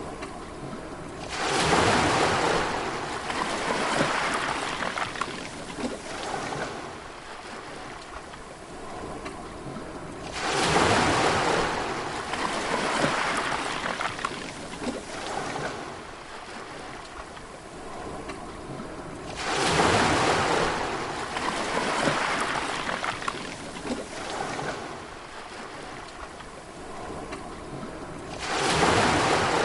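Sea waves breaking on the shore, one about every nine seconds, each crash followed by a wash that fades out over several seconds; four break in all, the last near the end.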